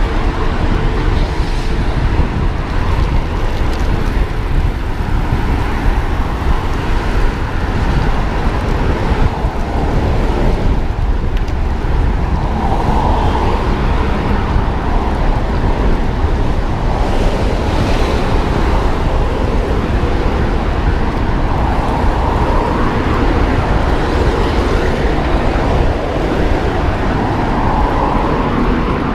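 Steady wind rush buffeting the microphone of a cyclist's camera at about 30 km/h, mixed with tyre and passing-traffic noise.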